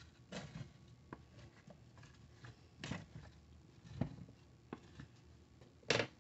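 Black plastic spoon stirring chunks of raw potato, kielbasa sausage and vegetables in a slow cooker: faint, irregular scrapes and knocks, with a louder knock near the end.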